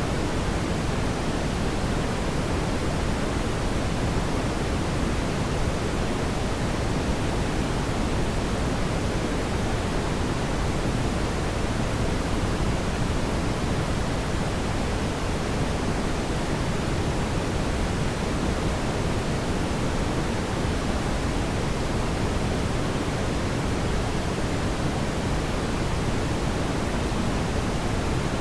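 Steady, even rushing noise of a fireplace fire, deepest in the low range, with no distinct crackles or pops.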